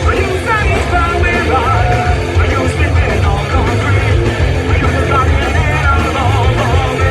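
Punk rock band playing loud and continuously, with a singer carrying the melody over a heavy, muddy low end. The bottom end dominates the mix, the sign of poor sound taken from the stage backline.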